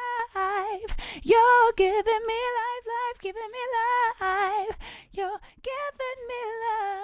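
Unaccompanied female lead vocal singing held notes with vibrato, in short phrases. It is heard through Logic Pro X's Studio VCA compressor at a 4:1 ratio, pushed toward about 7 dB of gain reduction.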